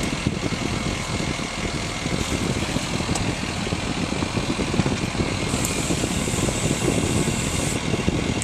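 Ford Super Duty truck engine idling steadily. A thin high hiss joins it for a couple of seconds past the middle.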